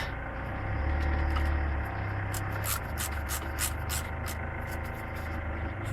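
A run of light, irregular clicks and scrapes from hand tools and car parts being handled, over a steady low hum.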